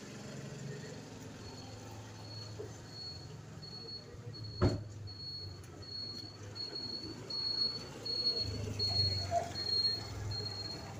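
Outdoor street ambience: a high, thin chirp repeating about twice a second, one sharp knock about halfway through, and a low rumble near the end.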